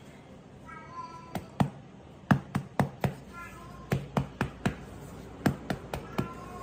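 Metal tube cake pan being knocked repeatedly to jar the baked cake loose from the mould: sharp knocks in quick runs of two to four, with short gaps between the runs.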